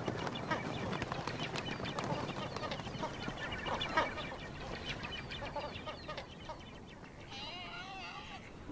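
A flock of small waterbirds calling with many short chirps, with wingbeats as they take off from a pond. Near the end comes a single wavering call.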